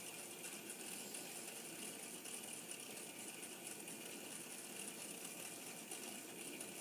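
Faint, steady background hiss of a small room, with no distinct sound in it.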